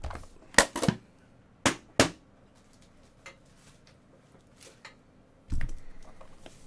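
A few sharp clacks and knocks of a small black card box being lifted out of its lidded hobby box and set down on a rubber table mat, all within the first two seconds. About five and a half seconds in, a duller thump as a hand takes hold of the box on the mat.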